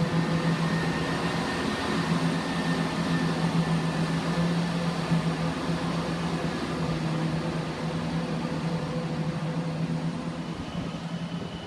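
Diesel multiple unit's engine running with a steady low drone at the platform. A faint high whine joins near the end.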